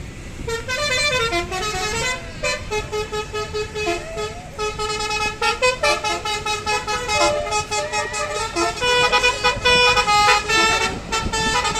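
Bus telolet horn playing a quick tune of short, stepped horn notes, starting about half a second in and going on almost without a break to near the end.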